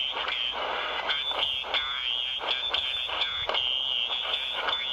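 Shortwave receiver on 7.267 MHz in the 40-metre amateur band giving out band noise with frequent crackles of static and a high, warbling whine.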